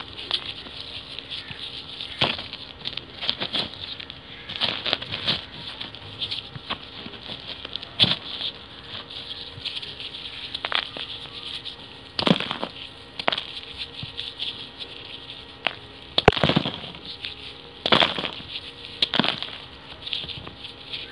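Dry sand-cement-clay balls crumbling in a gloved hand: irregular gritty crunches and crackles, with a few sharper cracks among them.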